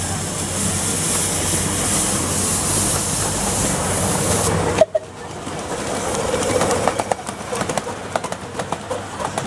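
Miniature steam locomotive hissing steadily as steam blows from its open cylinder drain cocks. The hiss stops abruptly about five seconds in, and a train then runs by with wheels clicking over the rail joints.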